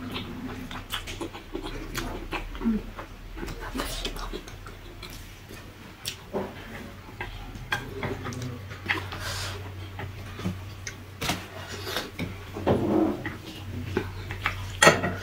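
Close-miked mouth sounds of someone eating spicy ramen noodles: slurping noodles, wet chewing and lip smacks in short, irregular clicks and smacks, with a brief hum of the voice here and there.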